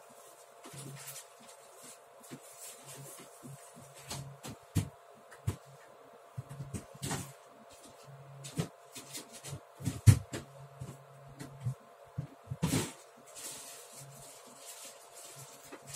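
Someone rummaging through stored things, with irregular knocks and clatters; the loudest come about ten seconds in and again just before thirteen. A faint steady hum runs underneath.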